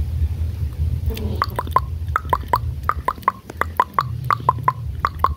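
Rose-ringed parakeet making a rapid run of short clicking chirps, about four a second, each dropping in pitch, starting about a second in. A low rumble runs underneath.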